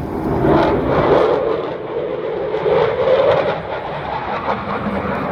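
Loud, steady engine noise of an aircraft flying past, with a slight rise in pitch about three seconds in.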